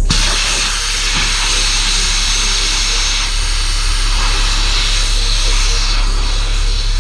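Air rushing out of an inflatable paddle board's open valve: a loud, steady hiss that starts abruptly and stops near the end. The valve pin is in the pushed-in, open position rather than out.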